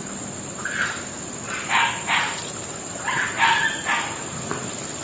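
A dog barking in several short bursts as it runs past, chasing something.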